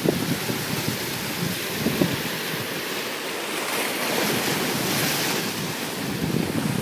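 Ocean surf washing and foaming over rocks below: a steady rushing wash that swells about four seconds in. Wind rumbles on the microphone now and then.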